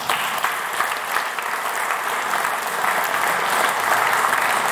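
Audience applauding: dense, continuous clapping from a seated crowd that begins at once and holds steady.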